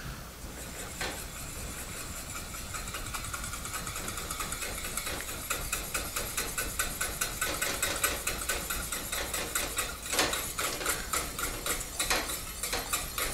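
Wire whisk beating fast and steadily against a stainless steel saucepan, whisking beurre manié into simmering stock to thicken it, with a few louder knocks near the end.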